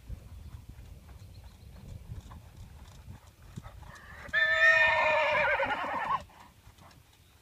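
Horse hooves trotting on arena sand, soft repeated beats, and about four seconds in a horse whinnies loudly for about two seconds, its pitch wavering.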